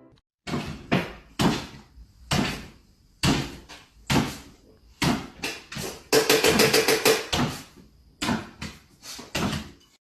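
A series of sharp knocks or thumps, about two a second, with a fast run of them about six seconds in.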